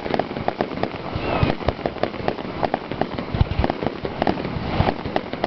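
Fireworks display: a rapid string of sharp bangs and pops, with a few deeper booms a little past halfway and a short falling whistle about a second in.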